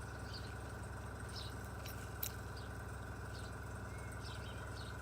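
Faint steady background hum with scattered faint high chirps, and a single small sharp click a little over two seconds in.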